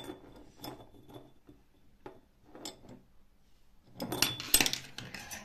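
Stainless-steel mesh strainer and glass jars knocking and clinking against each other and a wooden table as they are handled. Scattered light clicks come first, then a louder cluster of clinks and rattles about four seconds in.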